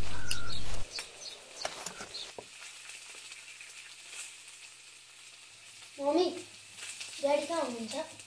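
Food sizzling in a pan on a kitchen stove, with scattered clinks of utensils. A loud low drone cuts off suddenly under a second in, and short voice-like sounds come twice near the end.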